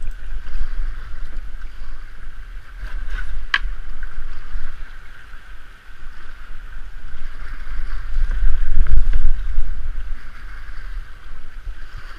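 Rushing water of a shallow, low-water rapid around a canoe as it runs down through the rocks, with wind buffeting the microphone in a low rumble that is strongest about eight to nine and a half seconds in. A single sharp knock about three and a half seconds in.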